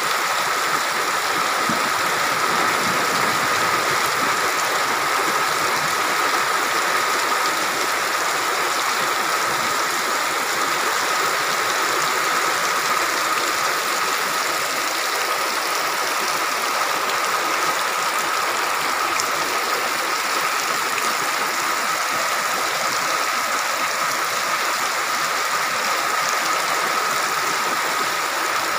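Heavy rain pouring steadily as one dense, even hiss, with a steady high-pitched tone running through it.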